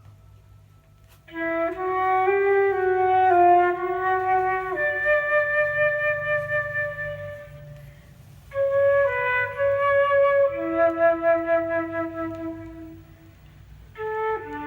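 Recorded music played through a 300B tube amplifier: the instrumental intro of a song, a solo wind melody in three phrases with short pauses between them. A steady low hum runs underneath.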